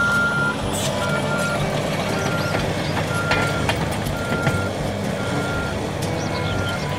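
Crawler bulldozer's diesel engine running as it pushes dirt, with its backup alarm beeping steadily about once a second.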